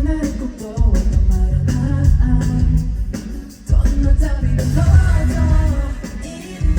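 Live pop performance heard through a concert venue's PA: a singing voice over a heavy bass beat, with the bass dropping out briefly twice.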